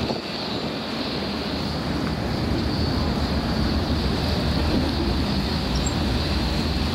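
Steady low rumble of boat engines over harbour water washing and some wind, growing a little louder about two seconds in.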